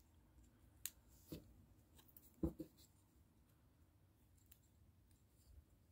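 Mostly near silence, with faint handling sounds of fingers working a sticker onto a small plastic toy. There are a few light clicks and soft taps, the loudest a dull tap about two and a half seconds in.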